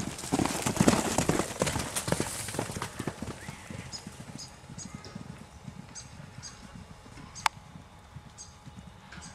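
Horse's hooves clip-clopping, busiest and loudest in the first three seconds, then thinning out to scattered steps, with one sharp click about seven and a half seconds in.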